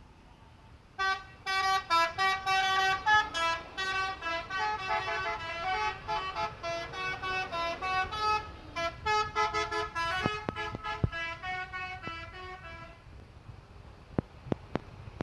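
Telolet multi-tone bus horns from several buses tooting quick overlapping melodies of short notes, starting about a second in and dying away a couple of seconds before the end. A few sharp clicks follow near the end.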